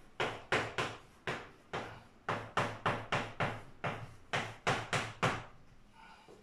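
Chalk writing on a blackboard: a quick, irregular run of about fifteen sharp taps and short scrapes as the letters are struck onto the board, stopping about a second before the end.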